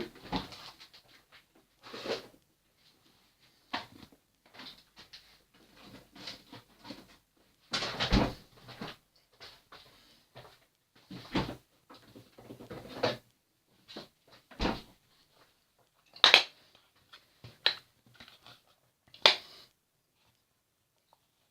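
An irregular series of knocks and clatters, like things being handled and bumped, with a couple of sharp, louder knocks near the end.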